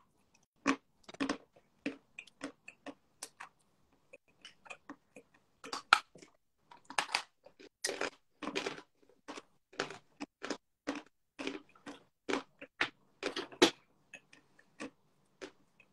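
Lumps of chalk being bitten and chewed, a run of crisp crunches at irregular intervals.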